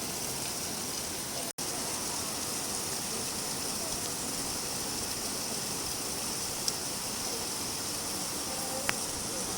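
Steady rain falling, a continuous even hiss with a couple of faint drip-like ticks late on. The sound cuts out for an instant about a second and a half in.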